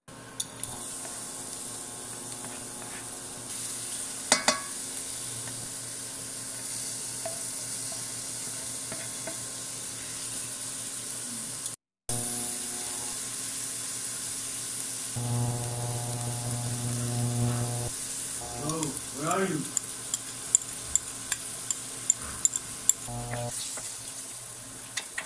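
Garlic, then diced onion and red bell pepper, sizzling in oil in a stainless steel frying pan while a spatula stirs them, over a steady low electric hum from the induction cooktop. Near the end the spatula clicks against the pan several times as the oyster sauce and mayonnaise are stirred in.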